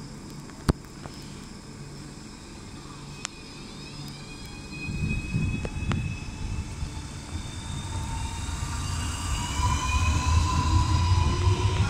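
Renfe Class 465 Civia electric multiple unit, two units coupled, pulling away from a stop. The first few seconds are a quiet steady hum with one sharp click. About four seconds in, the traction motors' whine starts and climbs in pitch while the rumble of the wheels on the track grows steadily louder.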